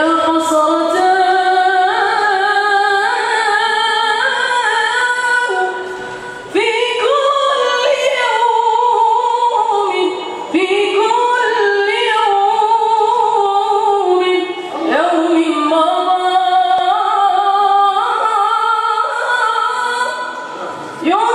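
A boy's high, unbroken voice singing an Arabic nasheed solo, in long ornamented phrases of about four to five seconds with brief gaps between them.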